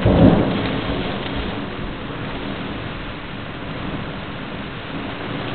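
Heavy rain falling steadily, with a loud low rumble of thunder right at the start that fades over the first second or so.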